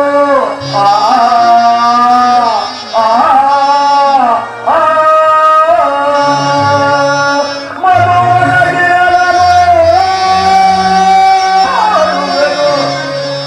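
Stage-drama music: a sung melody of long held notes that slide into each new pitch, with instrumental accompaniment beneath.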